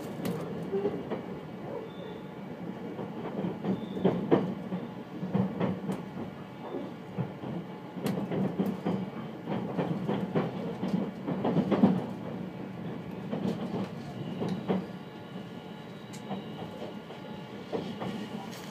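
Super Hitachi limited express electric train heard from inside the carriage: a steady rumble with irregular clicks and knocks as the wheels run over rail joints and points, a few knocks louder than the rest.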